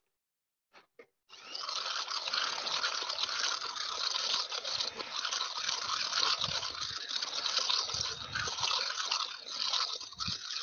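Electric stick blender running in a saucepan of fruit puree, churning the liquid; it starts about a second in and runs steadily with small swells.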